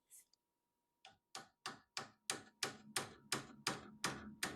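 A hammer tapping repeatedly, about three light blows a second, starting about a second in and growing louder.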